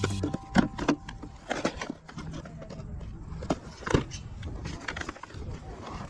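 Plastic DVD and video-game cases clacking against each other as they are flipped through in a plastic crate: a run of irregular short clicks and knocks.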